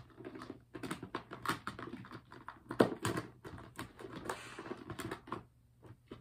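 Small plastic fidget toys clicking and clacking against each other and the sides of a clear plastic storage drawer as they are rummaged through, in quick irregular taps with one louder knock a little under three seconds in.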